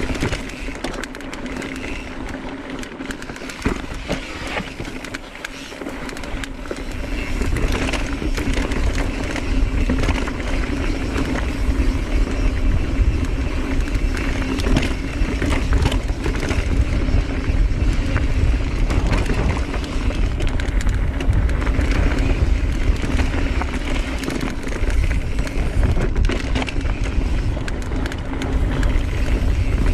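Mountain bike ridden along a dirt trail: the tyres roll and crunch, and the bike rattles and knocks over the ground. From about seven seconds in, wind rumbles heavily on the microphone.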